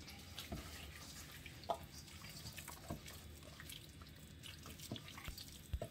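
Faint wet squelching and soft irregular taps of hands kneading and massaging jerk-seasoned raw pork against a stainless steel bowl.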